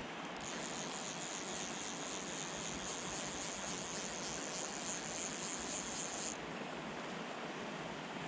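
Fly reel's click-and-pawl ratchet buzzing steadily as line runs off the spool for about six seconds, then stopping suddenly, over a steady hiss.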